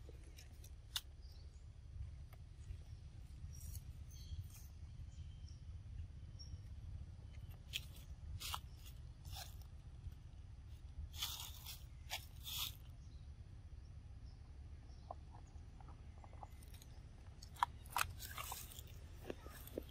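Scattered crunches and crackles from long-tailed macaques feeding and moving about on dry leaf litter, coming in short clusters, with a steady low rumble underneath.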